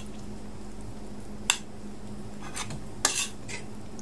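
Metal fork and spoon clinking and scraping on a ceramic plate while cutting and scooping food. One sharp clink comes about a second and a half in, then a few lighter clicks and scrapes near the end.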